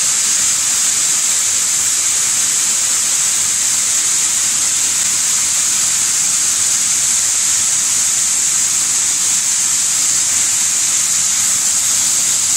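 Wheat cleaning machine running with wheat flowing through it, a steady high-pitched hiss.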